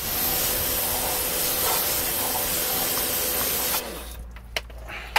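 Pressure washer spraying a steady hissing jet of water onto a car's rear lower suspension arm, rinsing off the cleaning solution. The spray cuts off suddenly a little under four seconds in, leaving water dripping.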